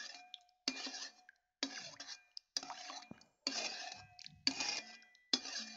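A metal spoon stirring hot, runny agar medium in an aluminium pot, scraping and clinking against the pot about once a second.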